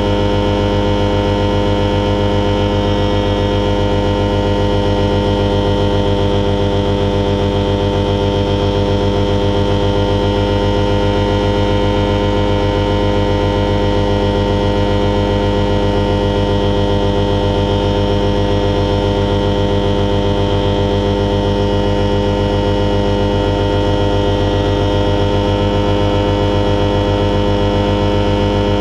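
The Alisport Silent-in motorglider's self-launch engine running steadily at constant power, heard from inside the cockpit as a loud, even drone with a fast regular pulse.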